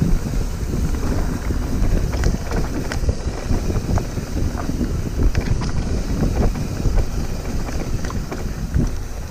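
Wind buffeting the microphone as a mountain bike rolls down a dirt trail, with a steady rumble of tyres on the ground and many short clicks and rattles from the bike over the bumps.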